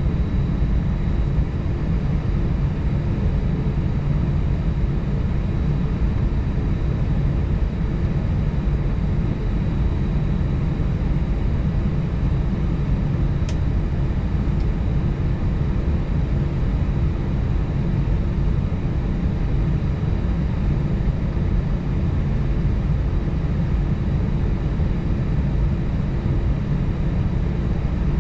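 Steady engine and airflow noise inside the cabin of an Airbus A320-family airliner, with a faint high steady whine over it. A single brief click about halfway through.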